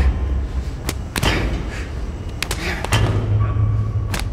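Irregular heavy thumps and sharp knocks over a deep low rumble, with a low steady hum rising briefly about three seconds in.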